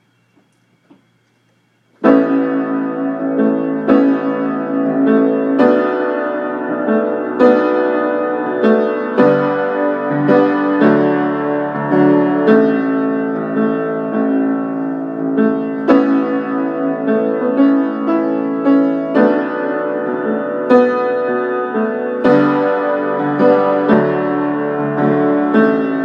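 Acoustic piano playing a song's introduction: chords struck at a steady, unhurried pace, coming in suddenly about two seconds in.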